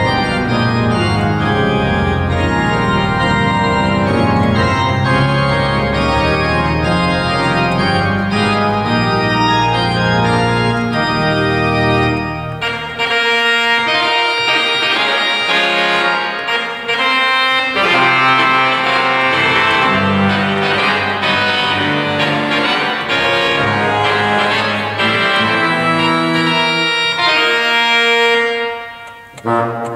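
Pipe organ playing a dialogue between its Tuba and Trumpet reed stops, with many notes sounding together. The deep bass notes drop out about twelve seconds in and come back only now and then, and the music almost breaks off for a moment near the end.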